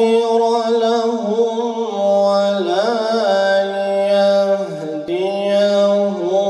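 A man singing solo and unaccompanied into a microphone, in a chanting style: long held notes that slide and turn in ornamented runs between pitches. The voice breaks off briefly about five seconds in.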